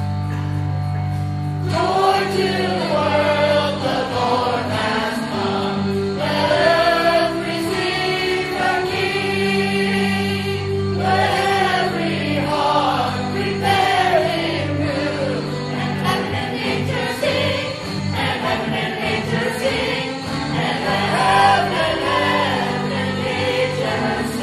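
A mixed group of men's and women's voices singing a Christmas song together over held backing chords. The chords sound alone at first, and the voices come in a couple of seconds in.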